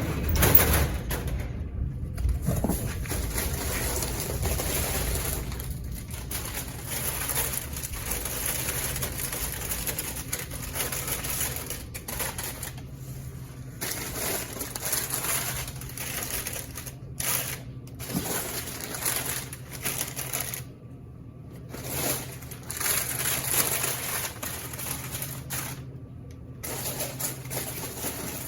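Crinkling plastic snack packets and light clatter as a vending machine is loaded by hand, in irregular spurts with short pauses, over a steady low hum.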